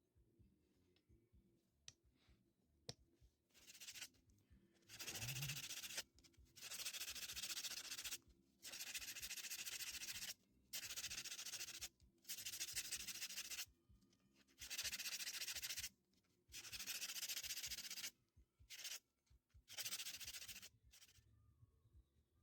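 Hand sanding of a wooden piece with sandpaper: a series of about eight long scratchy strokes, each a second or two long, with short pauses between them.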